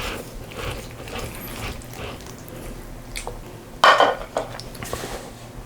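Eating utensils clinking and scraping against a bowl as a meal begins, with one louder clatter about four seconds in.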